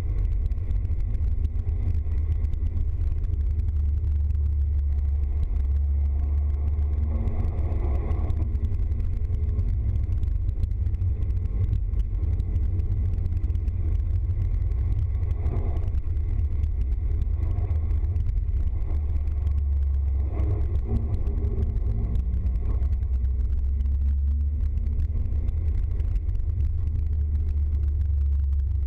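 Vehicle driving on a wet road, heard inside the cab: a steady low drone of engine and tyre noise, with a few brief swells in the hiss.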